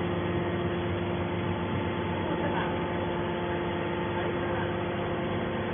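Small hydraulic scrap baler running: the steady hum of its electric motor and hydraulic pump, holding an even pitch throughout, with faint voices in the background.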